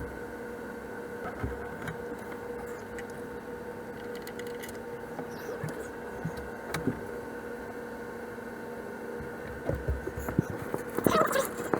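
Scattered light clicks and knocks of hand tools and bolts as a bell housing is bolted onto a marine diesel engine, busier near the end, over a steady background hum.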